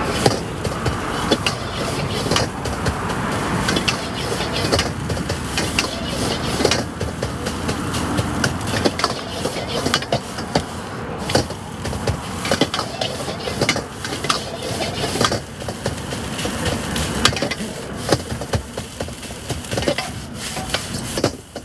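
Irregular knocks and clatter of cooking at a street food stall, over a steady background of street noise.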